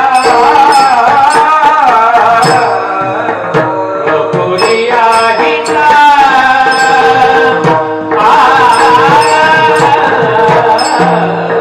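Devotional kirtan singing: a voice sings long, wavering melodic phrases over a steady held drone note, accompanied by regular mridang drum strokes and short high clinks.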